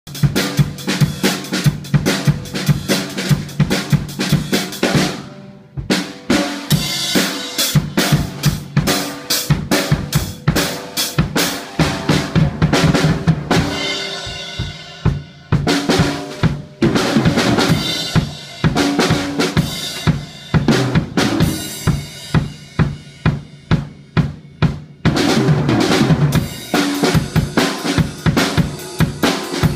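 Drum solo on an acoustic drum kit: quick runs of snare, tom and bass drum strokes with crashes on Zildjian cymbals, broken by a short pause about five seconds in.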